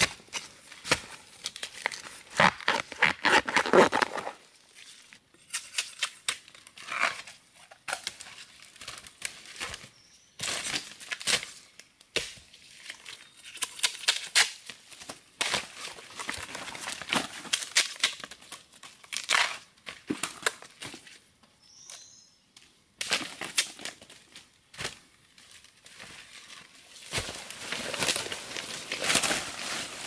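Irregular rustling, crinkling and snapping of leafy vegetation being handled and pulled, coming in bursts with short pauses between them.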